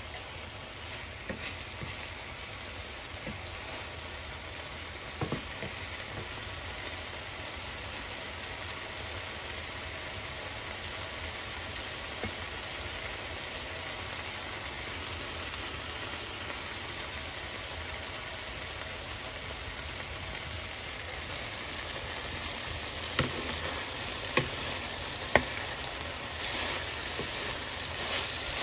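Bitter melon, tomato, onion and fried milkfish sizzling steadily in oil in a frying pan, a little louder in the last third. A wooden spatula clicks against the pan now and then, with several sharper clicks near the end as it stirs.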